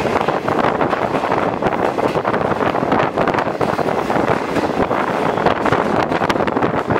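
Passenger train running at speed, heard from an open carriage window: a loud, steady rumble of wheels on rail with irregular clatter, and wind buffeting the microphone.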